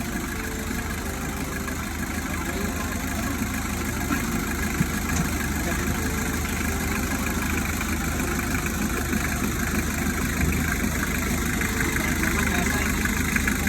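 Engine of a Willys M606 jeep idling steadily.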